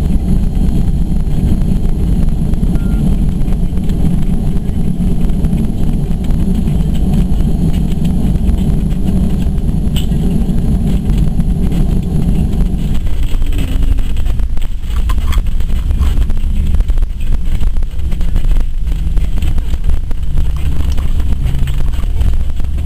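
Boeing 737-200's JT8D turbofan engines heard from inside the cabin while the airliner taxis after landing: a steady heavy rumble that eases somewhat about halfway through.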